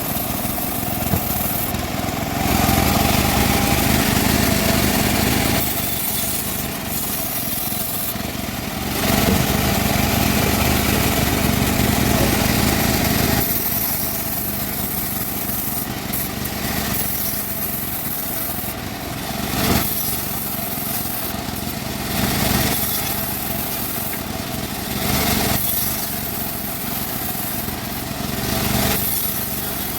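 Bandsaw sawing wood, running steadily with an engine-like drone. It grows louder for a few seconds at a time, twice in the first half.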